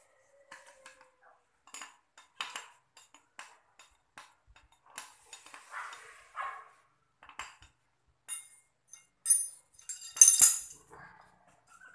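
Metal hand tool tapping, scraping and clinking against a truck starter motor's metal housing, in scattered light clicks. In the last few seconds come louder, sharper metallic clinks.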